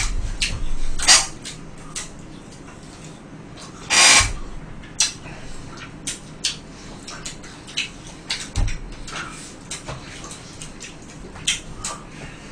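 Sounds of eating at a table: scattered clicks, knocks and handling noises from plates, a cardboard chicken box and a plastic drink bottle, with a louder brief noise about four seconds in.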